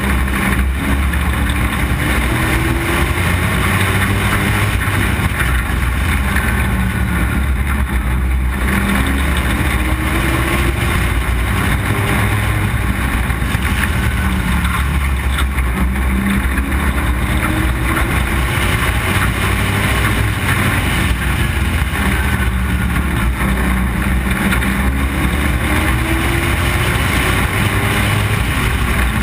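Street stock race car's engine at racing speed, heard from an onboard camera, running loud and steady and rising in pitch several times as it accelerates out of the turns onto the straights.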